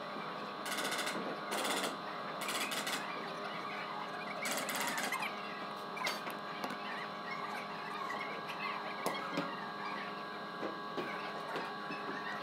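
Steady hum of a large hall, with four short bursts of rapid rattling in the first five seconds and scattered knocks after, as workers handle and walk on wooden floor panels being laid over plastic sheeting.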